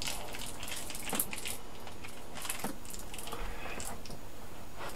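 Faint, scattered small clicks and light handling noises of tiny silver screws and a metal laptop hard-drive mount being picked up and fitted, over a steady background hiss.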